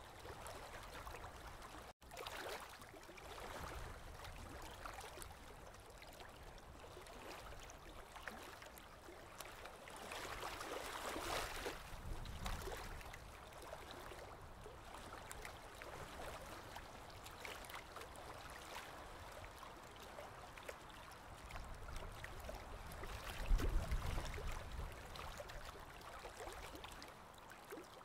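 Aquarium water trickling and bubbling steadily, with a low bump a little before the end.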